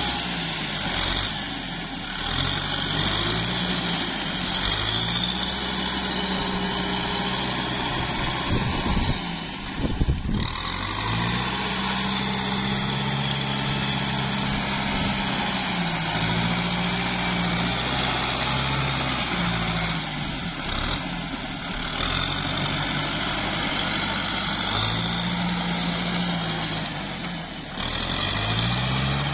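Kubota tractor's diesel engine working hard in deep mud, its pitch rising and falling again and again as the throttle is opened and eased. A brief clatter of knocks about ten seconds in.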